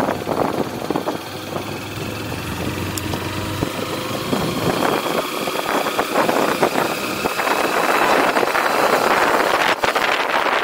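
Motorcycle engine running steadily at low speed, heard from the rider's seat; about eight seconds in, wind rushing over the microphone grows louder as the bike gathers speed.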